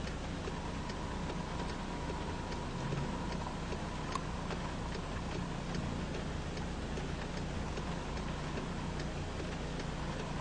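Light, irregular ticking of raindrops on the car's windshield and roof over a steady low hum inside the car's cabin.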